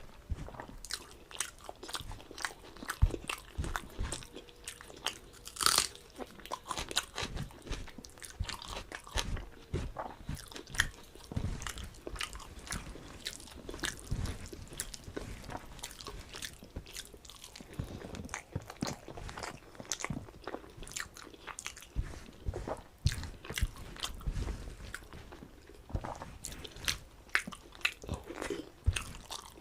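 Close-up eating sounds: a person chewing mouthfuls of rice with ol chingri (elephant foot yam and prawn curry), with irregular crunches and wet mouth clicks.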